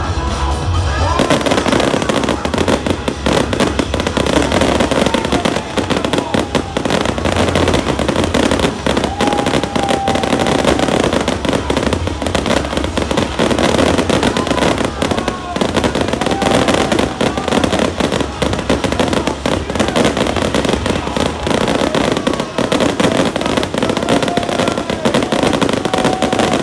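Fireworks display: a continuous, rapid barrage of bangs and crackling from many shells bursting at once, with no pause.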